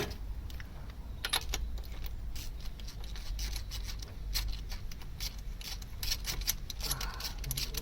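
Metal tools clicking and clinking against each other and the engine while spark plugs are being taken out, in irregular light taps that get busier in the second half.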